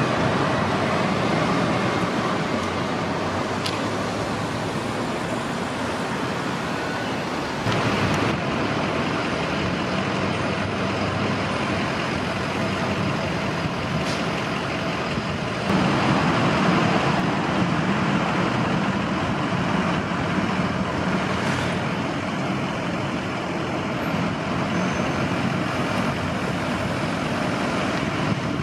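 Steady city street traffic noise, the hum of passing vehicles, with abrupt changes in level about 8 and 16 seconds in.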